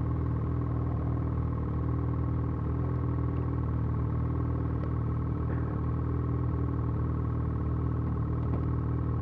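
Ski-Doo Gen 4 850 snowmobile's two-stroke twin engine idling steadily, its pitch holding level.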